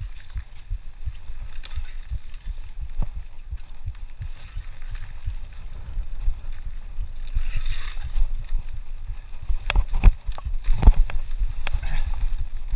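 Mountain bike descending rough singletrack: a steady low rumble of wind on the camera microphone with frequent rattling knocks from the bike over roots and rocks, the sharpest clunks coming about ten to eleven seconds in.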